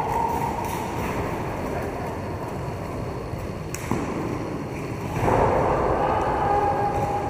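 Roller hockey in play: a steady rolling noise from quad skate wheels on the rink floor, with a few sharp clacks of sticks striking the ball. It grows louder a little past five seconds in.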